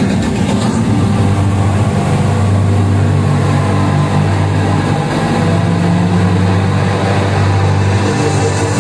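Steady, loud rush and rumble of water cascading down the tall walls of the Expo 2020 water feature, with low sustained tones underneath.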